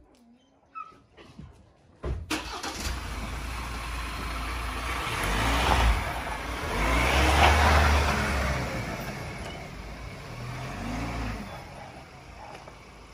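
A car engine accelerating as the vehicle drives off, with a steady rushing noise. It comes in suddenly about two seconds in, grows loudest near the middle and then fades.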